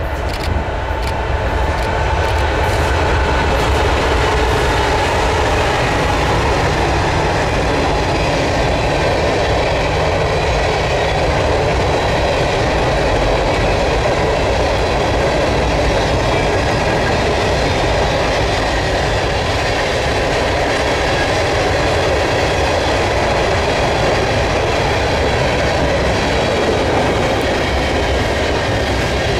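Canadian National manifest freight train rolling past: a steady, loud rumble of freight cars and wheels on the rails, with a few sharp clicks near the start.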